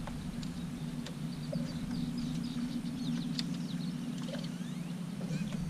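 Birds chirping, with many short high chirps and a few quick sliding whistles, over a steady low hum. A few faint light clicks come through.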